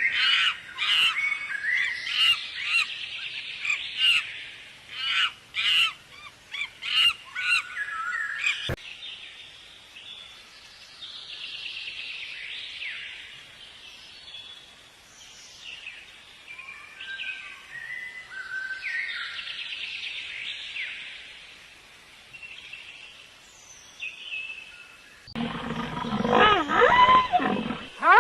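Animal calls from several spliced clips: high chirping calls with sharp clicks, then after a sudden cut softer chirping calls. Near the end a louder, deeper call with a wavering pitch takes over.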